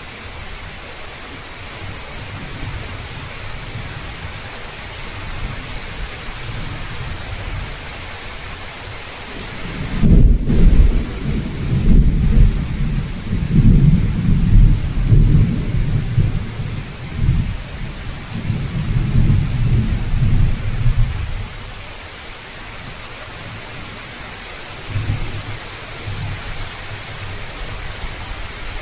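Heavy rain pouring steadily, with a long rolling rumble of thunder starting about a third of the way in and lasting some ten seconds, and a shorter, fainter rumble near the end.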